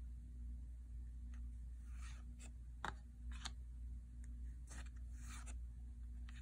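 Yu-Gi-Oh! trading cards being flipped through by hand: a few soft slides of card against card, with light snaps as each card is pulled off the stack.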